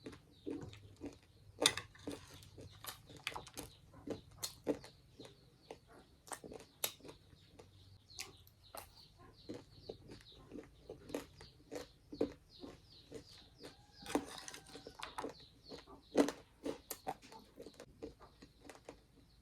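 Close-miked eating: chewing with wet mouth smacks and clicks, irregular and several a second.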